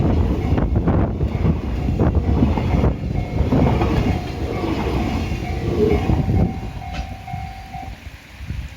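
Freight train wagons rolling past, a dense rumble with the clack of wheels over rail joints. The noise dies away over the last couple of seconds as the train draws off, and a thin steady tone sounds for about two seconds near the end.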